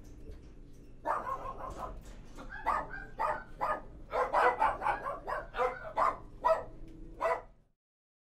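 A dog barking over and over in short, rapid barks over a low steady hum, starting about a second in and stopping abruptly just before the end.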